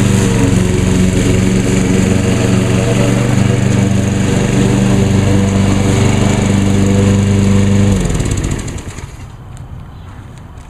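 Walk-behind lawn mower's Briggs & Stratton engine (2010 Craftsman Easy to Walk) running steadily at a constant speed, then shut off about eight seconds in, its pitch dropping as it spins down to a stop.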